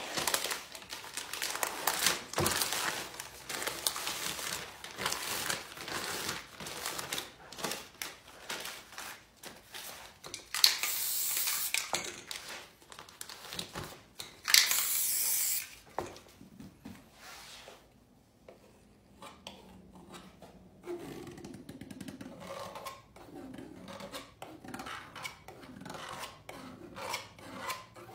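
Paper and a small tool rubbing and scraping across spray paint on a poster board. About ten seconds in and again near fifteen seconds comes a loud, steady hiss from a spray paint can, each lasting a second or so. After that the scratching goes on more quietly.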